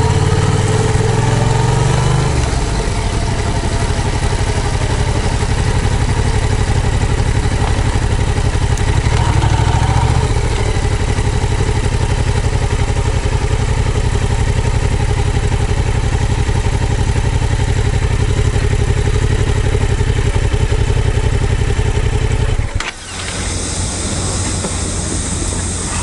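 Yamaha MT-07's parallel-twin engine running at low riding speed, its note changing a couple of times in the first ten seconds. Near the end the engine sound cuts off abruptly, leaving a steady hiss.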